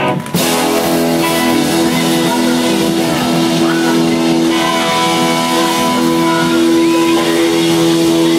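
Live rock band music with acoustic guitars, a chord ringing out steadily through most of it.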